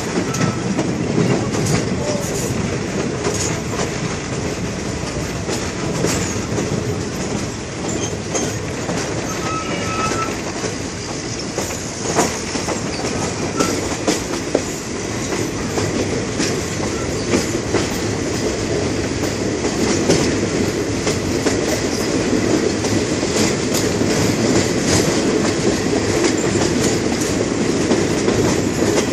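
Passenger train's steel wheels running on the rails, heard from an open carriage window: a steady rumble with frequent clicks and knocks as the wheels pass over rail joints and track points, and a couple of brief wheel squeals about ten seconds in.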